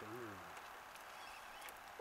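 A brief snatch of a voice at the very start, then a faint steady hiss with a few light clicks.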